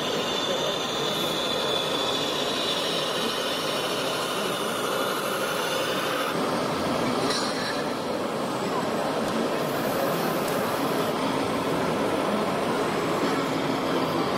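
Steady mechanical whirring with a faint high whine, from radio-controlled model machines: a model reach stacker and container truck at work.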